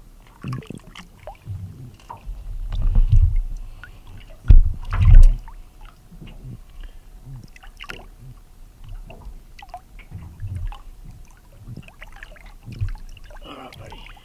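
Water splashing and sloshing as a mulloway is held in the water beside a boat and swum to revive it. Two louder, low thumping swells come about three and five seconds in.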